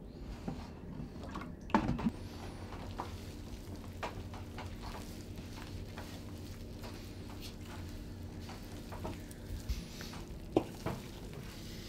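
Hands kneading very wet bread dough in a wooden kneading trough: irregular soft squelching and slapping, with a few sharper knocks about two seconds in and near the end. A steady low hum runs underneath.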